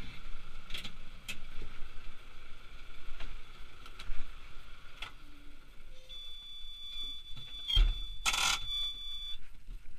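Tractor cab warning buzzer sounding a steady high-pitched tone for about three seconds, after a few faint clicks of the controls. A low thump and a short rush of noise come near the end of the tone.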